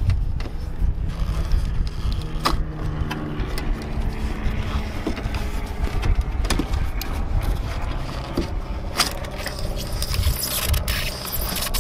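Wires and a straightened metal coat hanger being pulled through a truck door's rubber wiring boot: scraping and rubbing with many small clicks of handling, over a steady low rumble.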